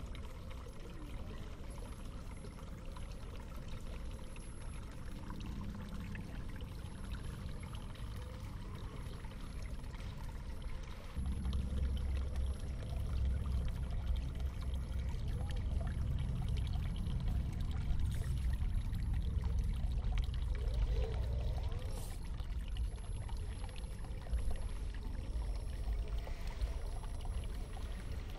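Water running and pouring steadily, with a low rumble that grows louder about eleven seconds in.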